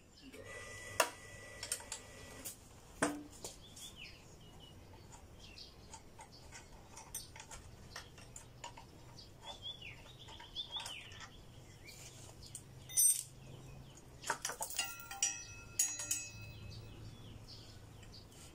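Metal hand tools clicking and clinking against a motorcycle's front brake caliper as the caliper is unbolted from the fork, with several sharp ringing metallic knocks, most of them near the end. Birds chirp a few times in the background.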